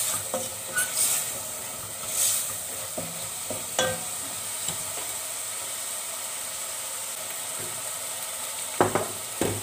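Chopped vegetables sautéing in a stainless steel pot: a steady frying sizzle, with a wooden spoon scraping and knocking against the pot in the first few seconds. A few louder clatters near the end.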